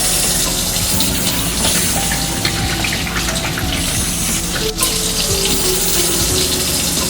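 Water running steadily from a tap into a sink, with soft background music underneath.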